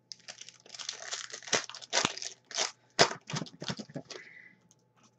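Foil wrapper of a football trading-card pack crinkling and tearing as it is ripped open. A quick run of sharp crackles that stops a little after four seconds in.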